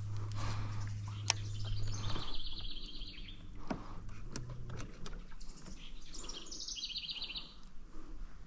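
A songbird sings two short, rapid trills, about two seconds in and again around six to seven seconds in, over a low steady hum that stops a little after two seconds in.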